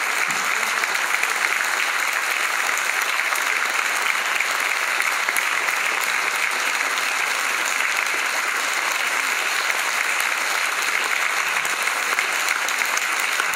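Audience applauding steadily: continuous clapping with no break.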